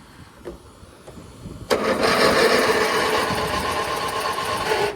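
Riding mower's electric starter cranking the engine for about three seconds, starting nearly two seconds in and cutting off suddenly. The mower has an intermittent starting fault that the owner blames on the starter solenoid.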